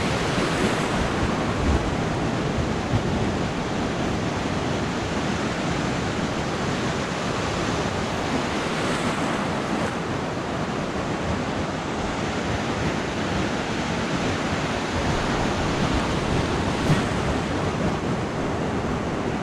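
Ocean surf breaking and washing up a sandy beach, a steady rush of white water.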